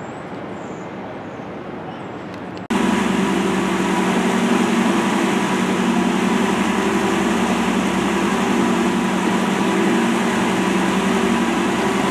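A quieter even background noise, then after a cut about three seconds in, a louder steady engine hum with a fixed pitch, as from a running vehicle.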